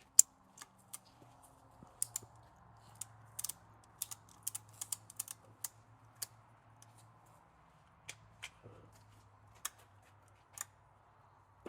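Irregular sharp clicks and light metal taps from hand tools working under a truck during a transmission removal, about two dozen spread unevenly with a bunch of them in the middle, over a faint steady hum.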